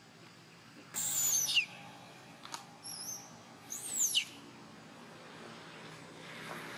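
Two high-pitched animal calls about three seconds apart, each a quick whistle falling steeply in pitch, with a short chirp between them.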